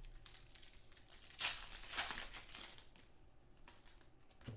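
Trading-card pack wrapper crinkling as it is handled and torn open, with cards rustling against each other, loudest about one and a half to two and a half seconds in.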